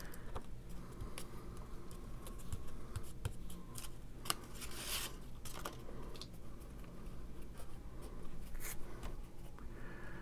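Hands handling cardstock pieces on a craft mat: light paper rustles, soft scrapes and small taps, with brief swishes about five seconds in and again near the end, over a faint steady low hum.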